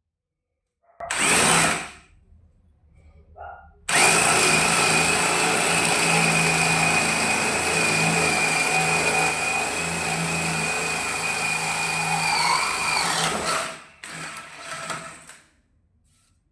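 A DeWalt 20V Max XR brushless cordless hammer drill gives a short burst about a second in, then runs steadily for about nine seconds with a constant high whine, its pitch sagging a little just before it stops. Brief clattering follows near the end.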